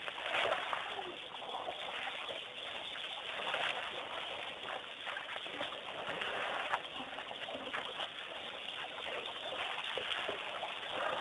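Waterhole sounds: water and mud splashing as elephants wallow and move through it, with birds calling throughout.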